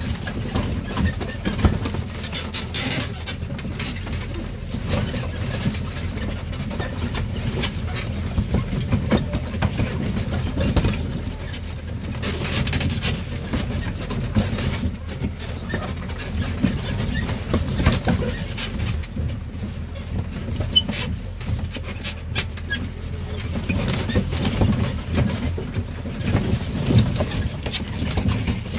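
Tourist train running along a rough farm track: a steady low rumble from the ride, with frequent rattles and knocks from the carriage.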